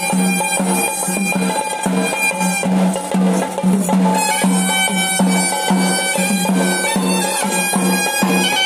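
Traditional Sri Lankan ritual music from a reedy, bagpipe-like wind instrument playing a melody, with drums beating an even rhythm underneath.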